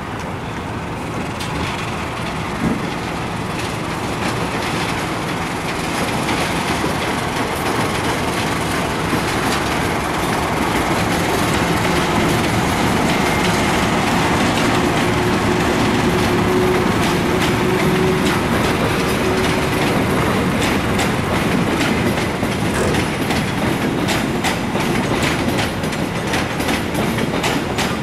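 Locomotive-hauled passenger train rolling past, its wheels clattering over the rail joints. The sound builds over the first dozen seconds and then holds, with the clacks coming thicker toward the end.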